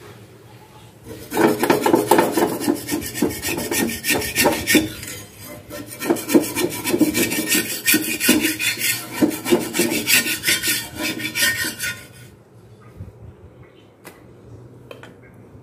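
Metal spatula scraping rapidly and repeatedly across a flat black griddle (tawa), working under a thin flour pancake to loosen it from the pan. The scraping starts about a second in and stops about twelve seconds in.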